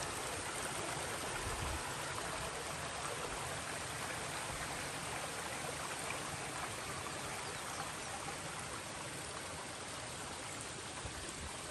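Water running steadily over rocks: a stream rushing through boulder-strewn flood debris, growing slightly fainter toward the end.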